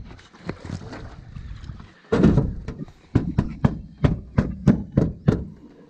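Carpeted deck panel being set into an aluminium jon boat: a heavy thump about two seconds in, then a run of about eight sharp knocks, roughly three a second, as the panel is pressed and patted down into place by hand.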